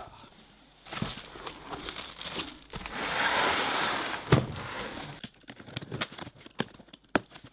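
Cardboard packaging being handled: rustling and crackling, a loud scraping rush about three seconds in that ends in a thump, then quick clicks and crackles as the packing tape on a cardboard box is slit with a knife and the flap pulled open.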